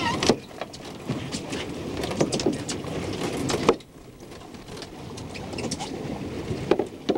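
Scattered sharp knocks and thumps as a small halibut is hauled over a boat's rail and handled on deck, over steady boat and wind noise. The background drops away abruptly a little past halfway.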